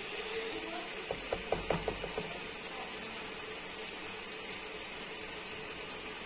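A black slotted plastic spoon stirring mixed vegetables in a metal pot, with a quick run of sharp clicks and scrapes against the pot about a second in, over a steady hiss.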